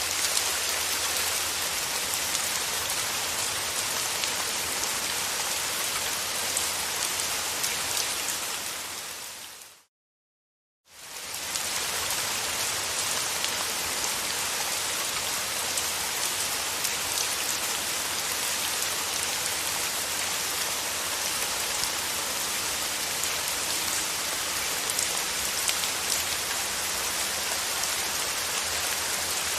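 Steady rain falling, a dense even patter of drops. About ten seconds in it fades out to silence for about a second, then fades back in.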